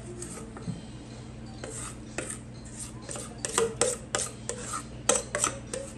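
A utensil scraping and tapping against a stainless steel mixing bowl as muffin batter is scraped out: a run of short, sharp scrapes that come quicker and louder in the second half.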